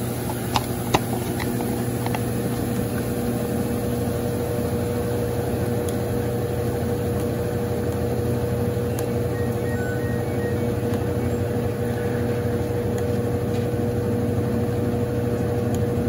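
Consul Super Cargo CWL10A top-loading washing machine in its spin cycle between the first and second rinse, the basket spinning fast: a steady motor hum with a constant whine, spinning well. Two light clicks come about half a second and a second in.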